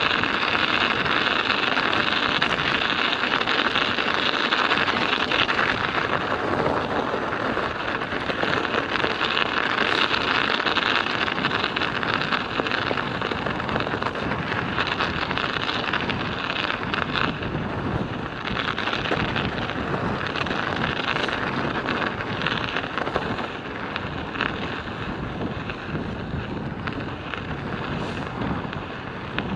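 Studded bicycle tyres rolling on a winter road: a continuous rattling hiss of the metal studs, with fine rapid ticking through it. Wind buffets the microphone throughout.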